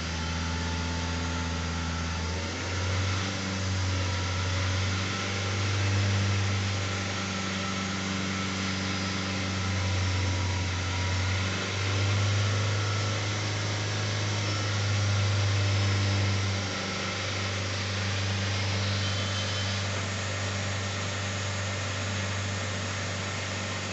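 Hyundai i20 engine revved in neutral with the handbrake on. The revs rise and ease back several times over a steady running note, with one longer hold at higher revs.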